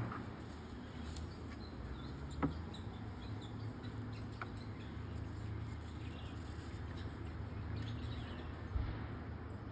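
A few sharp clinks, as if from the monkey climbing on the wire-mesh enclosure, the clearest about two and a half seconds in and another near the end. Under them are a steady low hum and faint high bird chirps.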